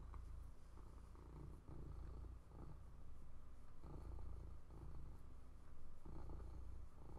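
Domestic cat purring, a low rumble that swells and eases every second or two.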